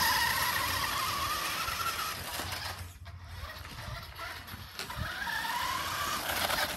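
Nikko Firehawk radio-controlled buggy's battery-powered electric motor and gears whining under throttle. The whine rises in pitch and holds, fades out around three seconds in, then rises again about five seconds in and cuts off suddenly near the end.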